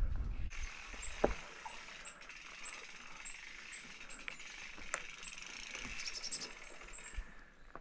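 Mountain bike's rear freehub clicking steadily as the bike coasts, a fast, fine ratcheting tick, with a few louder clicks along the way.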